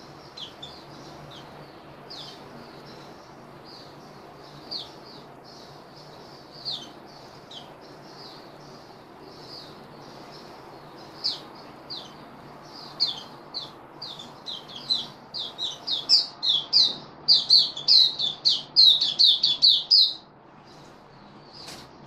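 Oriental white-eye chirping: short high chirps, scattered at first, coming faster and louder from about halfway, into a rapid run that stops abruptly near the end. A faint steady low hum runs underneath.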